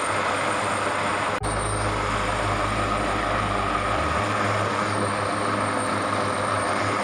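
Rescue helicopter running close by: a steady, loud wash of rotor and engine noise, with a brief break about a second and a half in.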